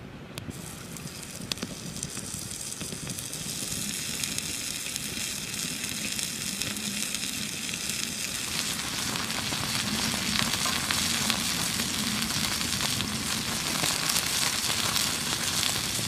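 Raw beef burger patty sizzling on a flat stone slab heated over a wood fire. The sizzle starts as the patty is laid on the hot stone and grows louder as it cooks, with the fire crackling beneath.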